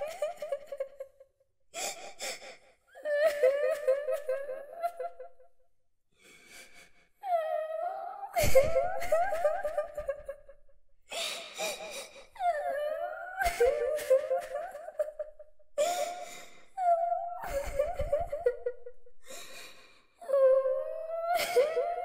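A little girl's voice crying and weeping: high, wavering sobbing wails in repeated bursts. Sharp gasping breaths come in between the sobs, with short pauses.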